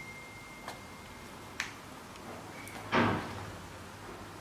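Handling noises: two faint clicks, then a louder short knock about three seconds in.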